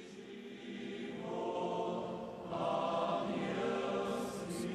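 Choir singing Byzantine-rite liturgical chant in long held notes, swelling louder about two and a half seconds in.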